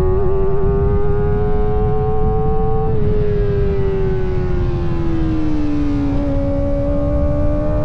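Kawasaki ZX-4RR's 399 cc inline-four engine running at high revs under way, its high whine climbing slowly for about three seconds, then falling away as the bike slows, then holding steady. Wind rush on the microphone underneath.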